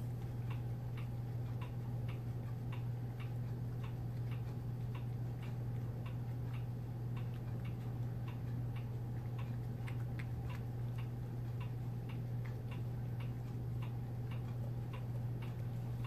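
Cats chewing soft raw chicken food bites from bowls, making quick, slightly irregular clicks about two or three a second, over a steady low hum.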